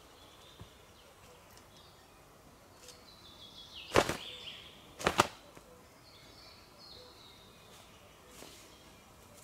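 Two sharp cracks about a second apart, the second a quick double, over faint high bird calls.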